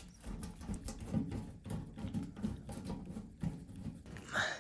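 Screws being backed out of the dryer's panel with a hand screwdriver: a run of small irregular clicks and scrapes of metal on metal.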